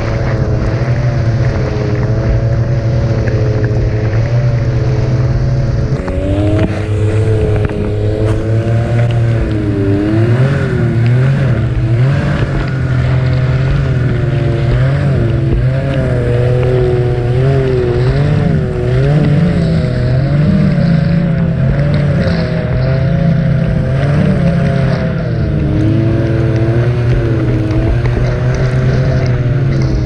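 Ski-Doo Expedition SE snowmobile's 900 ACE Turbo three-cylinder four-stroke engine running under load while riding. Its pitch rises and falls with the throttle.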